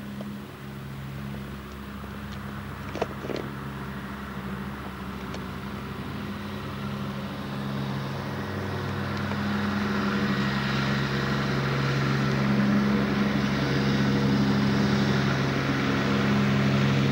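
Riding lawn mower engine running steadily, getting louder through the second half. A brief click about three seconds in.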